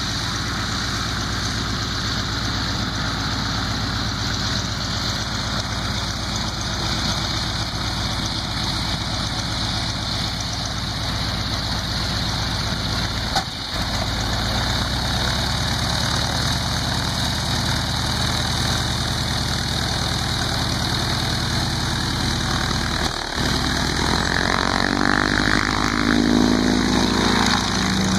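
Stearman biplane's radial engine idling steadily as the plane taxis on grass. Near the end it gets louder, with a sweeping, phasing sound as the plane turns close by.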